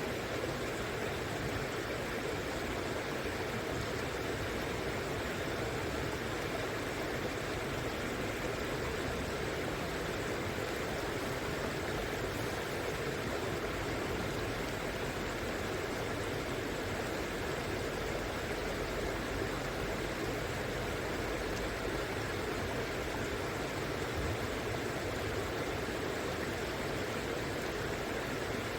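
River water flowing steadily, an even rushing noise that holds the same level throughout.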